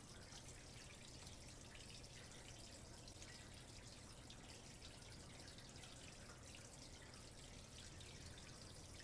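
Near silence: faint steady hiss and a low hum, with light crackle.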